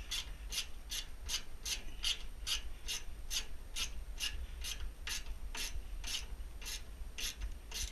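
Socket ratchet wrench clicking in a steady rhythm, about two to three clicks a second, as a bolt on a pellet stove's exhaust blower is backed out.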